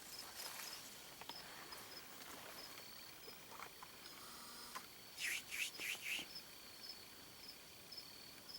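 Crickets chirping steadily in a regular pulsing trill, with four short scratchy rustles in quick succession a little past halfway.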